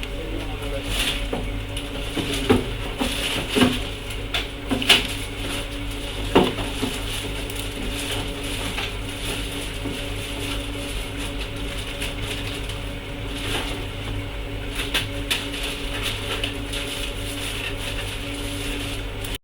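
Steady electrical hum with scattered small clicks and taps, several in the first few seconds and more later on, as of tools and parts being handled on a repair bench.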